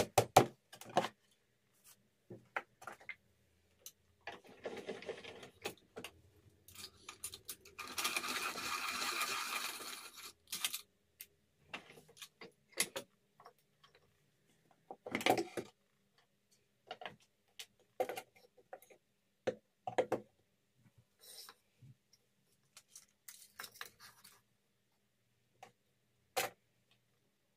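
Hands working a wooden toolbox and bench: scattered knocks and clicks of wood and tools being picked up and set down, with two longer scraping slides a few seconds in, wood sliding on wood as the toolbox's lid comes off.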